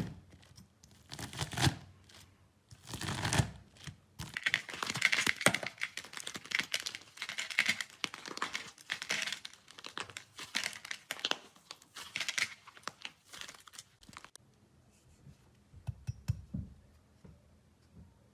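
Slime being handled: a few separate squishes, then a long stretch of dense crackling and popping as it is pressed and pulled, ending about four seconds before the end, with a couple of soft squelches after that.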